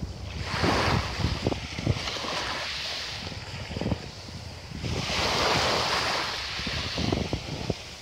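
Small sea waves breaking and washing up a pebble beach: a hissing surge about half a second in and another about five seconds in, over a low steady rumble.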